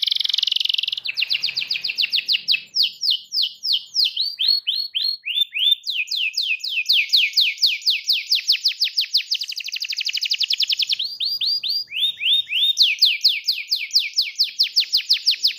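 Canary singing a long, unbroken rolling song: a buzzy trill at the start, then run after run of quick falling whistled notes, the runs changing in speed and pitch.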